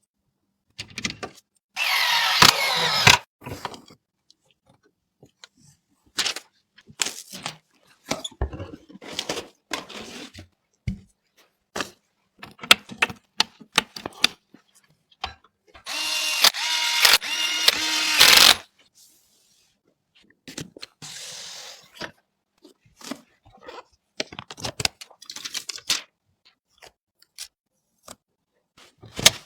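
Small electric screwdriver whirring in two bursts, about a second long near the start and about two and a half seconds long around the middle, with scattered clicks and taps of parts and screws being handled in between.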